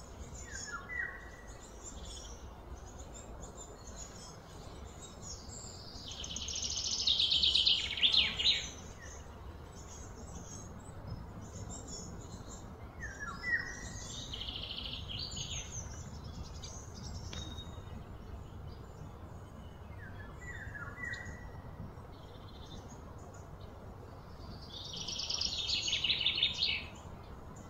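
Birds calling over a steady low background hum. Three times, a rapid, high, pulsing trill swells up and breaks off, and a few short falling chirps come between.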